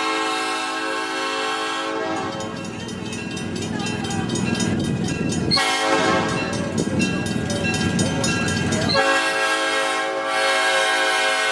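Southern Pacific E9 locomotive 6051's multi-chime air horn sounding a chord in long blasts: one fading out about two seconds in, another starting about halfway, and a third starting near the end and held. A low rumble fills the gaps between blasts.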